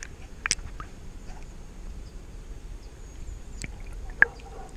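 Muffled underwater water noise picked up by a submerged camera: a steady low rumble with a few sharp clicks or knocks, the loudest near the end.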